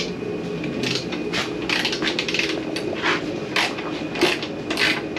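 Hand socket ratchet being worked back and forth, a short burst of ratcheting clicks two or three times a second starting about a second in.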